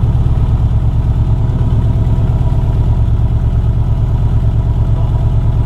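Subaru GC8 Impreza's freshly rebuilt flat-four boxer engine idling steadily with an even low pulse.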